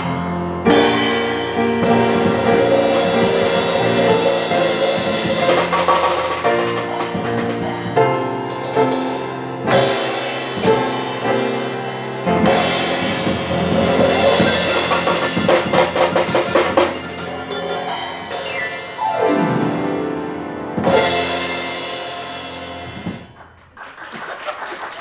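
Piano and percussion duo playing an upbeat instrumental piece. It ends on a final chord about 23 seconds in, and applause begins just after.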